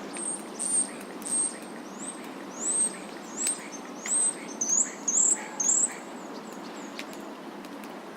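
A small songbird chirping: about ten short, high, upward-sliding notes, one every half second or so, growing louder before stopping near the end, over a steady low background hum.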